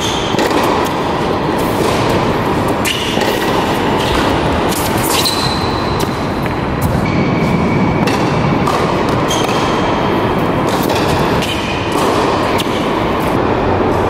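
Tennis rally on an indoor hard court: sharp racket-on-ball strikes and short high sneaker squeaks over a steady, loud rushing noise.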